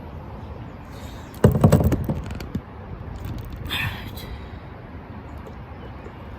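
A cluster of knocks and rattling clicks about a second and a half in, then a brief scrape near four seconds, over a steady background hiss.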